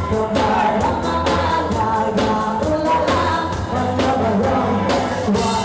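Live rock band playing loudly, with a woman singing into a handheld microphone over drums that keep a steady beat of about four strokes a second.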